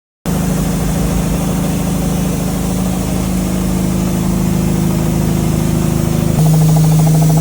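Car engine idling steadily. It starts abruptly, and about six seconds in its tone shifts slightly lower and louder.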